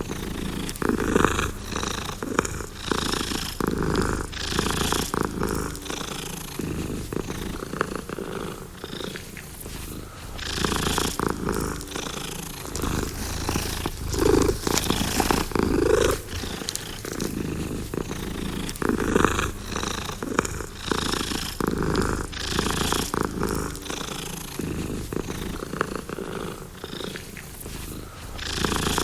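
Domestic cat purring steadily and close up, the purr swelling and easing in a slow rhythm every second or two as the cat breathes in and out.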